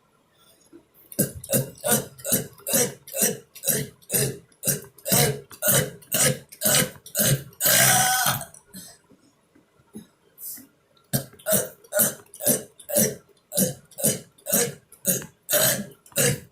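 A person burping in a fast string of short burps, about three a second, with one longer burp about eight seconds in. After a short pause with a single burp, another fast run of burps begins.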